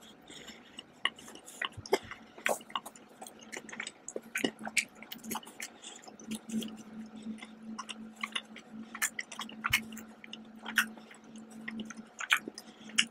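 Close-miked chewing of chocolate: wet mouth clicks and smacks at irregular intervals, over a steady low hum.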